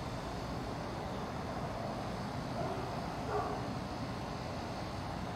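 Steady low outdoor background rumble, like distant traffic or an aircraft far off, with a faint brief tonal sound about three seconds in.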